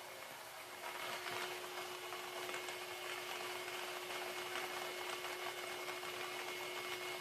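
Lottery-style ball-draw machine running: a steady motor hum with many light plastic balls rattling and clicking as they are tossed about inside the clear chambers and drop into the outlet tubes.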